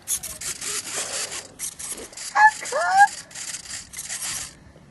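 Rustling and scraping close to the microphone in uneven pulses, with two short squeaky gliding squeals in the middle; the rustling stops shortly before the end.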